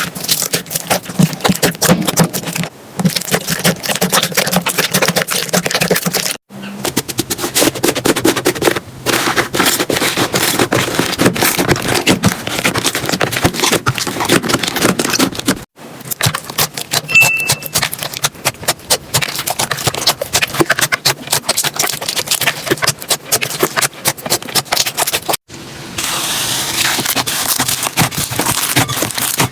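Slime being squeezed and pressed by hands, giving a dense run of crackling, clicking pops, in several short clips cut together.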